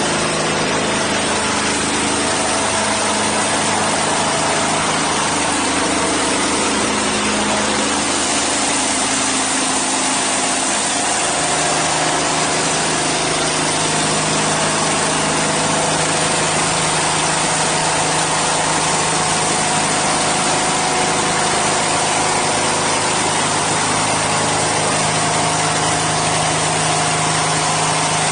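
Diesel engine of a portable band sawmill running steadily while the band blade cuts along a log, with a dense hiss of cutting over the engine tone.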